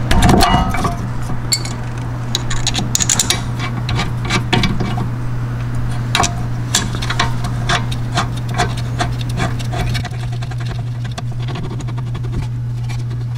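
Light metallic clicks, taps and rubbing as new brake pads and caliper-bracket hardware are handled and seated on a Mercedes rear brake. A steady low hum runs underneath.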